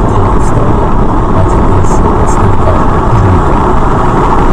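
A car driving: loud, steady road and engine noise with a low rumble.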